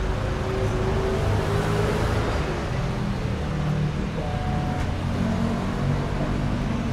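Street traffic: motor vehicle engines running and passing close by, a steady drone of engines over road noise.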